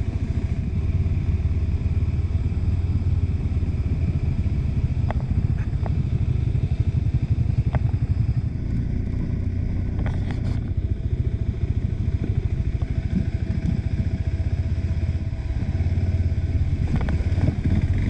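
A KTM 390 Adventure's single-cylinder engine runs steadily while being ridden, with a few sharp clicks over the engine note.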